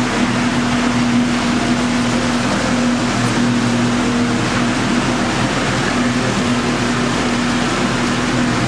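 Boat motor running steadily at a constant, even pitch as the boat moves along, over a steady hiss of water.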